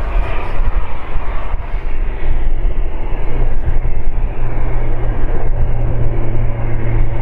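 Airbus A330-300's twin Rolls-Royce Trent 772B engines running at taxi power as the airliner rolls past, a loud steady low rumble with a hum that grows stronger in the second half.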